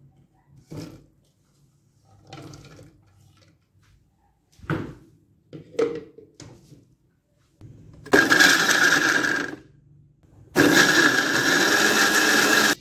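Electric blender running in two pulses, a short one about eight seconds in and a longer one about two seconds later, grinding green bird's-eye chillies, shallots, garlic and soaked dried shrimp into a paste. Before it, light knocks and clatter as the ingredients go into the plastic jug and the lid is fitted.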